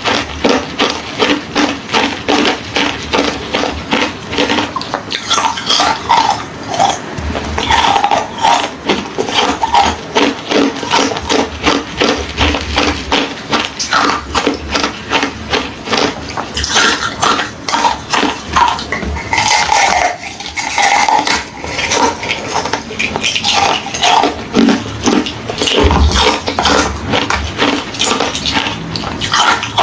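Close-miked crunching of hollow, refrozen ice being bitten and chewed, a quick, continuous run of crisp crunches.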